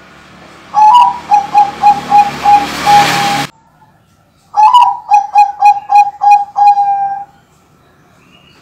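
Bangkok-strain zebra dove (perkutut) singing two coo phrases. Each begins with a higher note, runs quickly through a string of short coos and ends on a longer coo. A rising hiss lies under the first phrase and cuts off suddenly.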